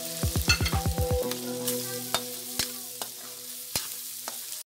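Chopped meat and innards sizzling in an aluminium wok while a metal spatula scrapes and stirs them. Background music with held notes plays underneath, with a quick run of drum hits in the first second. The sound cuts off abruptly just before the end.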